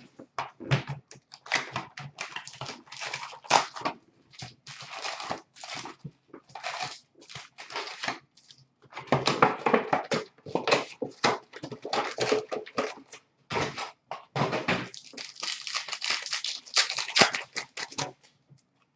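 A box of Upper Deck hockey card packs being opened and the wrapped packs handled: crinkling wrappers and rustling cardboard in irregular bursts with brief gaps, busier from about halfway through.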